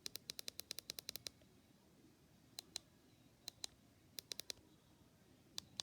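Buttons on a Midland HH weather radio being pressed to set the alarm time: a quick run of about a dozen light clicks in the first second or so, then single and paired clicks every second or so.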